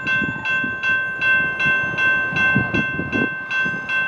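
General Signals type-2 electronic crossing bell ringing in quick, even strokes, about four a second, over a steady ringing tone. It is the warning for an approaching train while the crossing gates come down.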